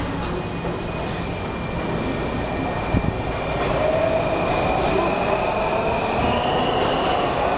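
WMATA Metrorail train sounds at a station platform: a steady high-pitched whine, with a lower tone and the overall sound growing louder from about halfway as a train comes in. There is a single sharp knock about three seconds in.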